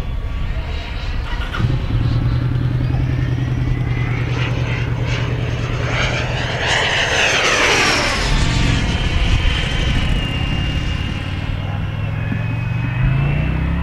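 Electric ducted fan of a radio-controlled Viperjet model jet whining in flight. It swells and sweeps in pitch as the model makes a low pass about seven seconds in, then falls in pitch as it flies away. A steady low hum runs underneath.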